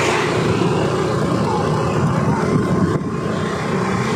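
Steady riding noise from a two-wheeler on the move: wind rushing over the microphone and the engine running at a constant speed.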